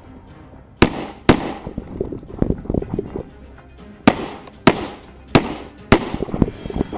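Six pistol shots from a Glock: a quick pair about a second in, then, after a pause of nearly three seconds, four shots in a steady string about 0.6 s apart.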